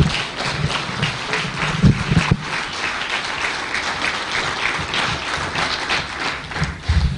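An audience applauding, with a couple of low thumps about two seconds in.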